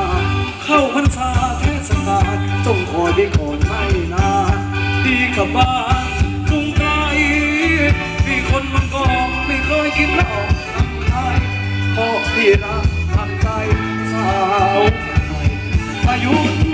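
Thai ramwong dance music played by a live band, with a singer over a steady drum beat.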